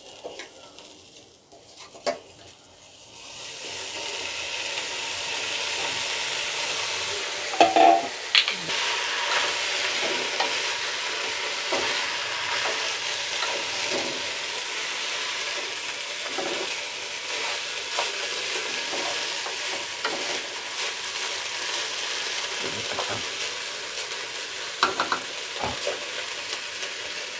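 Raw rice frying in hot oil with whole spices in a pot. A steady sizzle begins a few seconds in, while a wooden spatula stirs and scrapes through the grains, knocking sharply against the pot about eight seconds in and again near the end.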